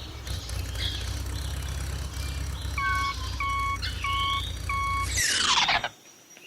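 Vehicle engine running with a low, steady rumble, and reversing beeps sounding four times at an even pace partway through. Near the end comes a quick falling whoosh, and then the sound cuts off.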